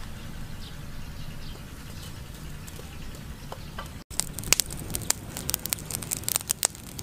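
Charcoal fire crackling: irregular sharp pops and snaps start about four seconds in and go on densely, over a low steady background.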